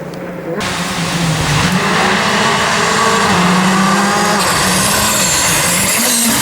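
Rally car engine revving hard, its pitch rising and dropping several times as it shifts and lifts off. From about half a second in, a loud rushing noise of tyres and the car's passage sits over it.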